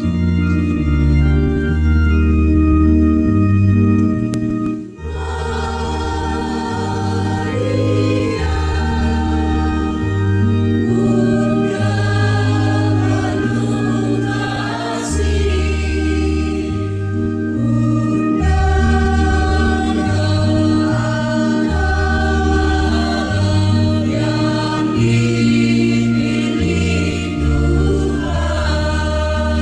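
An organ plays a slow introduction over a stepping bass line. About five seconds in, a choir enters singing a slow Catholic hymn to Mary in Indonesian, with the organ accompanying.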